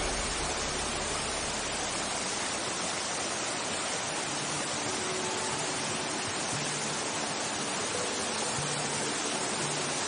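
Mountain stream water rushing over rocks at a small cascade: a steady, even rush.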